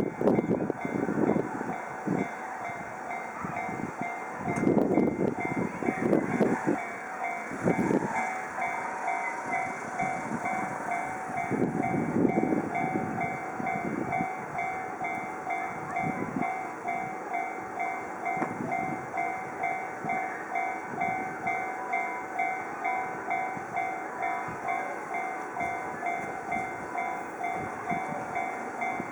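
Japanese level-crossing warning bell ringing in a quick, even ding-ding throughout, while a Chōshi Electric Railway railcar passes over the crossing with low rumbling and wheel thumps, heaviest in the first half.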